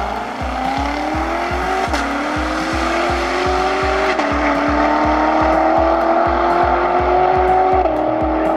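High-performance car engines accelerating hard from a standing start, the pitch climbing through each gear and dropping at shifts about 2, 4 and 8 seconds in. Background music with a steady beat plays under it.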